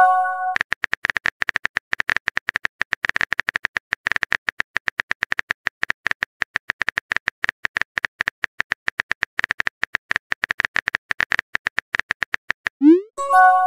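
Electronic sound effects: a fast, uneven run of short clicks, several a second, between two short chimes of a few held notes, each chime led in by a quick rising swoop; one chime opens the stretch and the other comes near the end.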